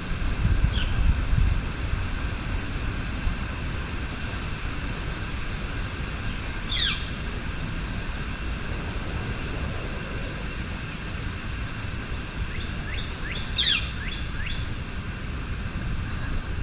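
Woodland birds calling over a steady rush of river and wind in the trees: three sharp, steeply falling calls, with many short high chirps between them.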